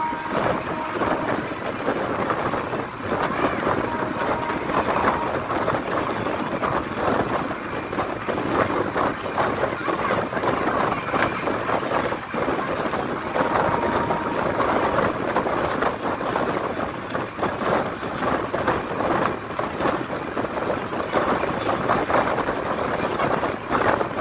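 Passenger train coach running at speed, heard at an open door: a steady rush of wind and the rumble and clatter of wheels on the rails, with wind buffeting the microphone.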